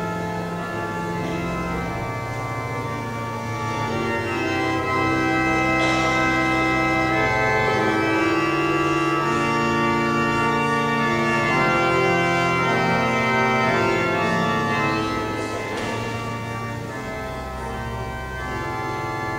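Church organ playing slow, sustained chords. It swells louder about four seconds in and eases off again near the end.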